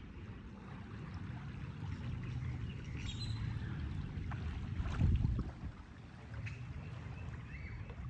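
Wind rumbling on the phone microphone over the wash of waves on a sandy beach, with a stronger gust about five seconds in.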